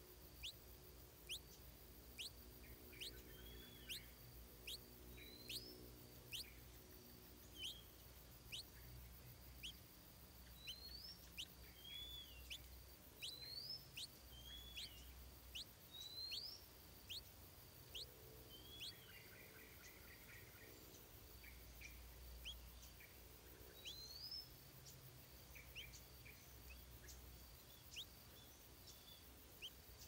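Faint high-pitched bird chirps: quick sharp notes one or two a second, with short upslurred and down-curving call notes among them, thinning out in the second half.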